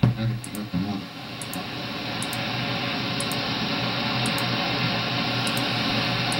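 Shortwave radio heard through an online WebSDR receiver: a station's programme fades out about a second in and gives way to a steady hiss of band noise as the tuning steps up through the 15 MHz band. Faint clicks come every second or so as the tuning buttons are pressed.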